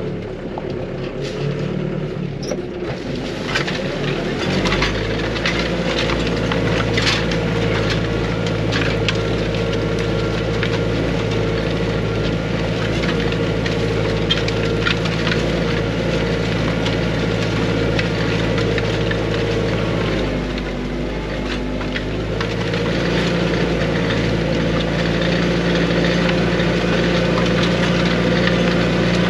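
Arbos 3055 tractor engine running under load while pulling a disc harrow, heard from inside the cab, with many short cracks and clatters over it. The engine note rises about four seconds in, dips briefly around twenty seconds in, then picks back up.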